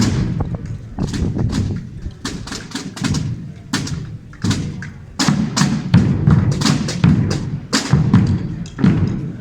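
Spanish Holy Week processional drum corps: snare-type tambores and bombos (bass drums) playing a marching rhythm of sharp strikes over low booming beats. It eases off about two seconds in and comes back stronger, with heavier bass-drum beats, from about halfway.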